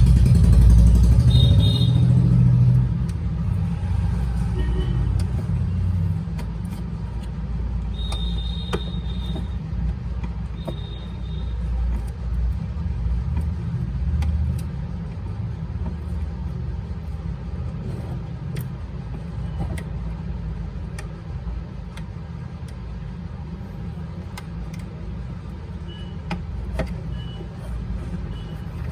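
Steady low rumble of road traffic, with a few brief high beeps and faint scattered clicks over it.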